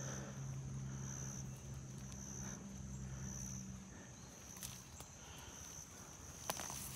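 Quiet woodland ambience: an insect calls in short high buzzes about once a second over a low steady hum, which fades about four seconds in. A few sharp snaps and rustles of forest debris come near the end as a hand pulls a cable from the ground.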